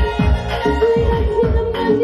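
Live electronic keyboard music from a Technics arranger keyboard: a held lead melody note over a fast drum pattern of deep beats that fall in pitch.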